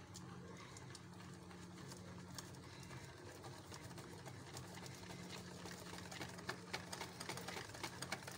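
Wire whisk stirring a thick chocolate mixture in a bowl: soft, irregular clicks and taps of the wires against the bowl, more frequent after about five seconds, over a steady low hum.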